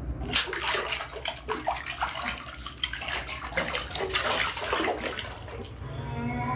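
Water splashing and sloshing in a bathtub in irregular bursts for about five seconds, then dying away near the end.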